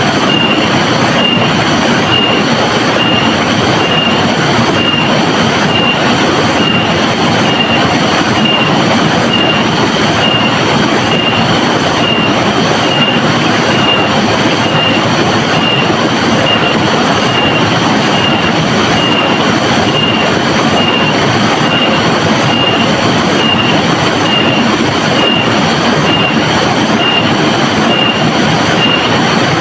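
River water rushing steadily, with a thin high tone pulsing evenly a couple of times a second over it.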